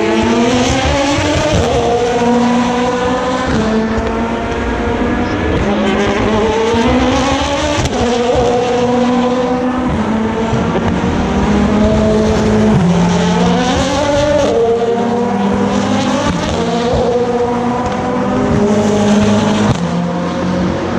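Endurance race cars accelerating out of a tight corner one after another, their engines rising in pitch through the gears with quick upshifts, several cars overlapping.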